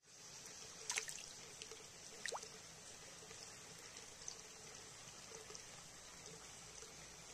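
Faint, steady trickle of water in a koi pond, with a few short sharp clicks and quick chirps about a second and two seconds in.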